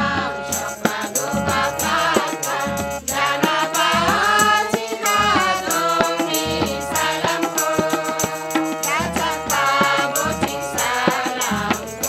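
Group of women singing a folk song together, accompanied by harmonium and hand drums with a steady beat.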